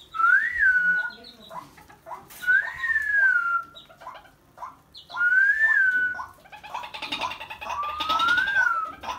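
White-breasted waterhen chick calling: a clear whistled note that rises then falls, given four times about two and a half seconds apart, with soft short chips in between.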